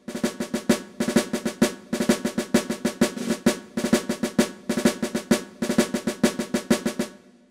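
Intro music: a rapid drum cadence of quick snare-like strikes in phrases over a steady held tone, fading out near the end.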